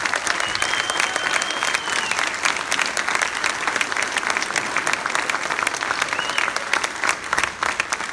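Audience applauding steadily, with a high steady note held for about a second and a half near the start and a short one again later.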